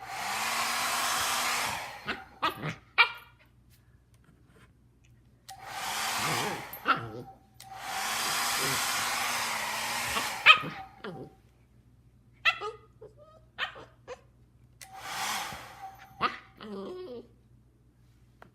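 A hair dryer blowing in four bursts of one to three seconds, switched on and off. A husky barks and yips in short calls between the bursts and just after each one stops.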